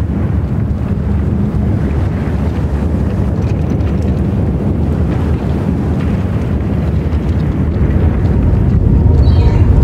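A loud, steady low rumble like wind or a distant engine, swelling somewhat louder over the last couple of seconds. Near the end a faint high warble and a thin steady tone come in over it.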